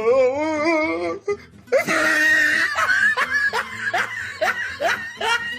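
Laughter sound effect: a wavering, wobbly voiced sound for about a second, then, after a short break, hearty laughter in repeated 'ha' pulses, about two or three a second, to the end.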